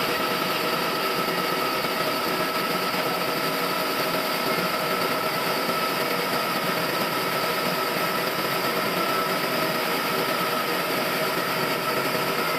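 Sawmill machinery running steadily, with a constant whine over a dense mechanical noise and no change in load.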